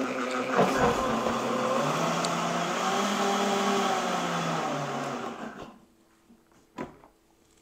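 Countertop blender motor running steadily, puréeing cilantro, mint and yogurt into a green chutney. Its pitch rises and falls slightly in the middle, then it winds down and stops a little after five seconds. Two light knocks follow.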